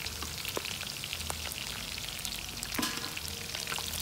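Pieces of parboiled wild boar meat frying in hot pork lard in a wide metal pan, being browned to crisp golden bits: a steady sizzle full of small crackling pops, with a few louder clicks as a metal spoon turns the pieces.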